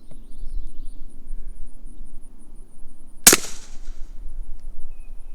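A single suppressed pistol shot about three seconds in, firing a 147-grain poly-coated Mills round: one short sharp crack with a brief tail, metered at 67.7 dB. Crickets chirp steadily in the background.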